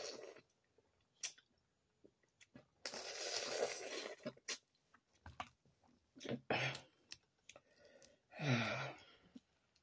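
Sucking and slurping of boiled crawfish and sauce, including one long suck about three seconds in, between sharp clicks and cracks of crawfish shells being pulled apart and peeled.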